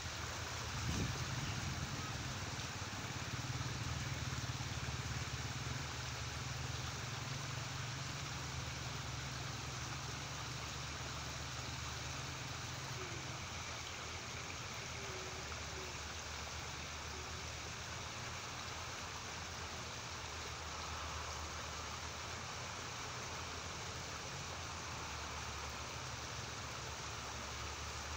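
Shallow stream water running steadily over stones and ground, a continuous hiss. A low hum sits underneath and drops away about thirteen seconds in.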